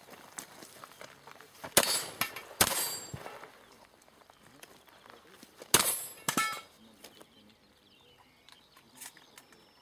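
Shotgun shots in a practical shooting stage: two pairs of loud reports, the second pair about three seconds after the first, with metallic clanging after them.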